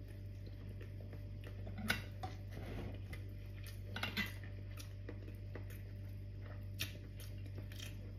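Quiet eating sounds: a few light clicks of a metal spoon against a glass bowl and plate, with soft chewing between them, over a steady low hum.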